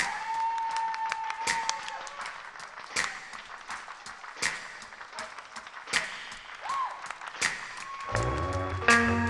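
Audience and band clapping a slow, steady beat, about one clap every second and a half, with a whistled melody over the first two seconds and briefly again near seven seconds. About eight seconds in, the band comes in with bass and chords.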